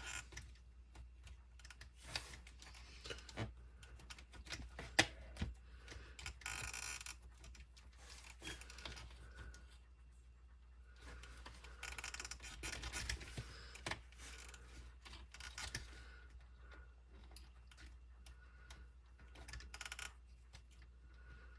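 Small clicks, taps and light rattles of hands working on a small RC crawler shock absorber, its plastic and metal parts knocking together, with a couple of longer rustling stretches partway through.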